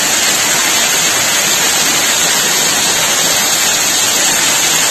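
Small waterfall splashing down a rock face close to the microphone: a loud, steady rush of water.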